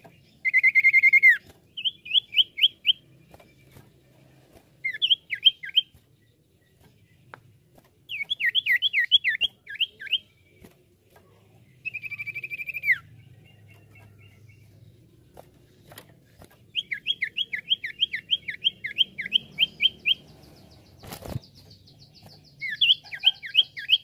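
Common iora (cipoh) singing in bursts. It gives long clear whistled notes that drop at the end, and quick runs of sharp, falling chip-notes, the song used as a lure call for cipoh. A single sharp knock sounds near the end.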